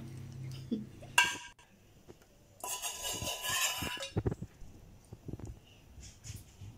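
A metal spoon clinking and scraping against a metal baking tray: a ringing clink about a second in, a longer scrape of about a second and a half, then a few light taps.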